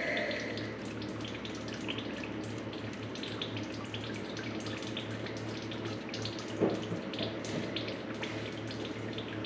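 Steady background hiss with a low hum, with faint scattered ticks from a small stainless set screw being turned by hand into a radiator's tube, and one slightly louder knock about two-thirds of the way through.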